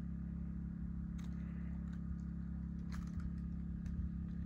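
An engine idling, a steady low hum that holds one pitch, with a few faint clicks.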